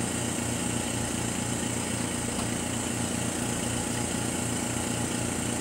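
A small machine runs steadily with a low, even, quick pulsing under a constant hiss. It is background equipment of the mask-aligner setup.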